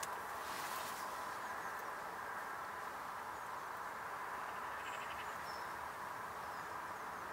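Steady outdoor background hiss with faint, short, high chirps of small birds scattered through it and a brief soft rustle just after the start.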